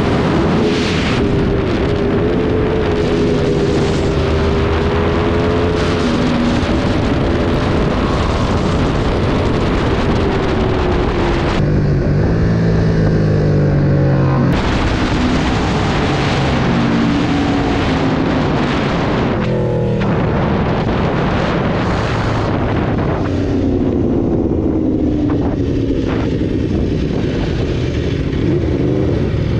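Sport motorcycle engine at speed, its pitch rising and falling again and again as it is revved through the gears, under heavy wind rush on the microphone. The wind noise drops away for a few seconds around the middle and again near the end.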